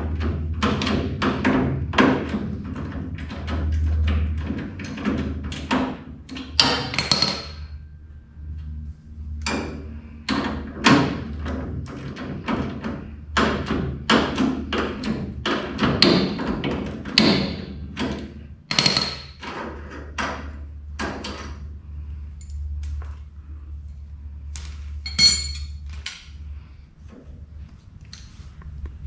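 Irregular metallic clinks and knocks of hand tools on steel suspension bolts and chassis tubing as the bolts are worked loose, some strikes ringing briefly, over a steady low hum.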